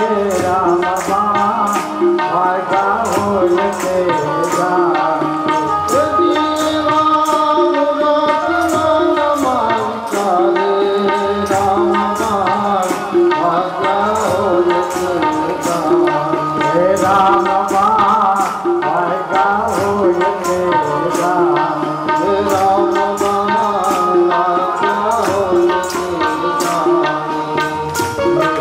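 Devotional bhajan: group singing over sustained instrumental tones, with tabla and the congregation clapping in a steady beat, a little more than one stroke a second.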